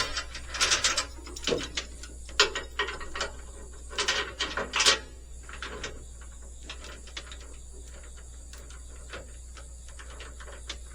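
Metal clanks and clicks of a tie-down chain and its binder being handled and tightened to hold the load on the trailer. The loud clanks bunch together in the first five seconds; fainter, scattered clicks follow.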